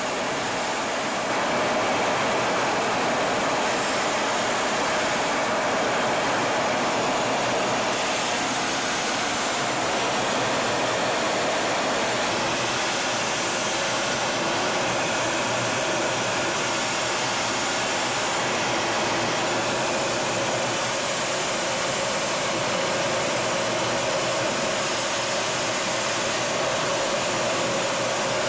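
Steady rushing noise of a Kfir fighter jet in flight, its General Electric J79 turbojet and airflow heard inside the cockpit, a little louder from about a second and a half in.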